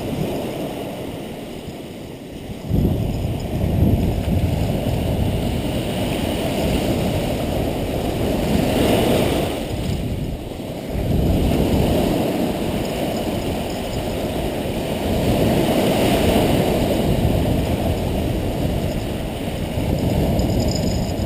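Surf breaking and washing up a sandy beach: a continuous rushing wash that swells and eases as the waves come in, with a stronger surge about three seconds in.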